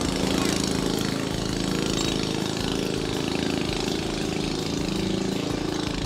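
An engine running steadily, a low pitched hum with a fast even pulse.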